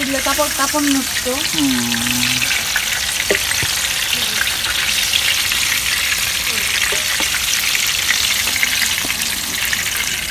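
Eggplant slices sizzling and crackling steadily as they fry in oil in an electric skillet, with a few light clicks of a utensil turning them.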